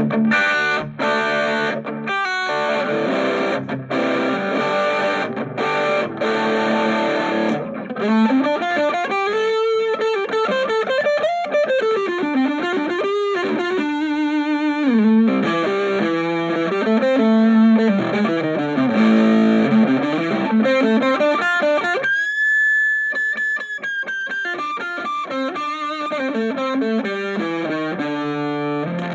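Electric guitar played through an Orange Micro Terror hybrid amp with a valve preamp, boosted by a Golden Horse overdrive pedal with the drive set low. Choppy, stop-start chord riffing gives way after several seconds to single-note lead lines with string bends, including one long sustained bent note about three quarters of the way through.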